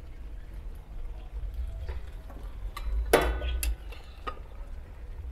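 A few clinks and knocks of dishes and utensils being handled, the loudest about three seconds in with a brief ringing, over a steady low rumble.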